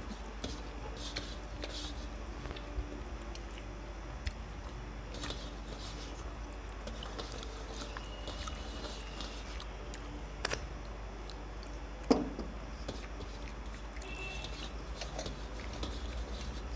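Eating by hand from stainless-steel plates: fingers mixing rice, chewing, and scattered small clicks of metal. A steady low hum runs underneath, and there is one short louder sound about twelve seconds in.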